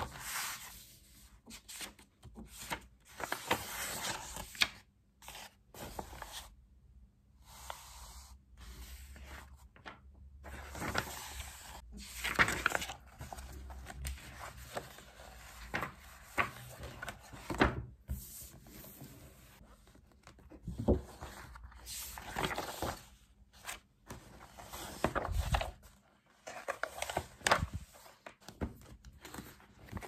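Paperback study books handled on a desk: paper rustling as pages are turned, covers scraping against each other, and a few dull knocks as books are set down.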